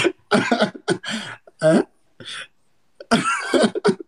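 A man's voice in a run of short, breathy bursts, some carrying a pitched vocal sound, with a longer burst about three seconds in.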